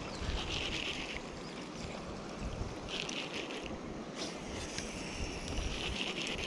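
Wind buffeting the microphone beside a choppy river, an even rushing noise with irregular low gusts. Three short hissing bursts come about a second in, around three seconds and near the end.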